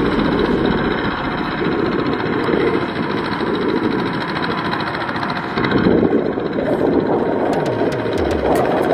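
Kubota walking hand tractor's engine running steadily under load as its cage wheels work a flooded rice paddy, getting briefly louder about six seconds in.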